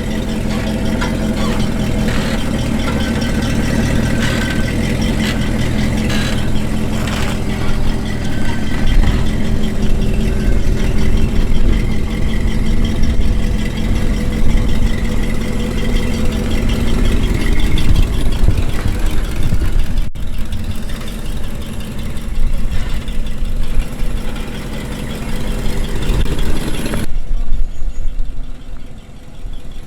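Jeep CJ5's engine running at low speed as it crawls along in four-wheel-drive low, first gear.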